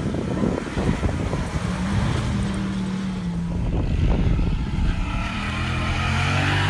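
2010 Ford Raptor's V8 engine running as the truck drives on sand, its note rising and falling with the throttle. Low gusty rumble, like wind on the microphone, in the first second or two.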